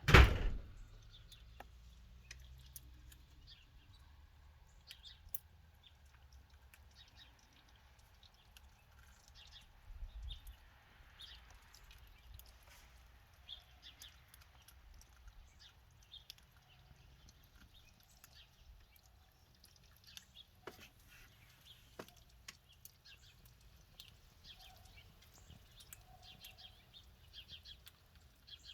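A loud bump right at the start, then faint, scattered high chirps with occasional sharp ticks.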